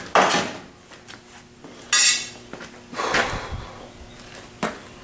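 A few short metallic clanks and scrapes, about a second apart, as loose sheet-metal parts are handled, over a faint steady hum.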